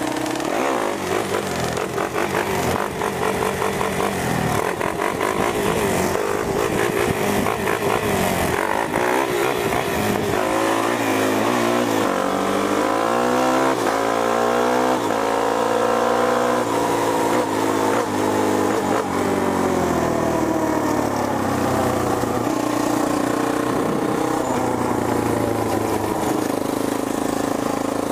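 Sport quad (ATV) engine running on the move; about halfway through its pitch climbs steadily for several seconds as it accelerates, then falls back as the throttle eases off.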